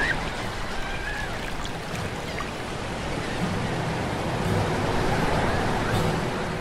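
Ocean surf washing onto a beach, a steady rushing noise.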